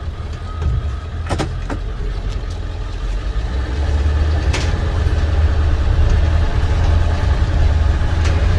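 Ford 7.3-litre Power Stroke turbo-diesel V8 running, heard from inside the cab as the van drives. It gets louder about four seconds in as it pulls ahead, with a few sharp clicks over the rumble.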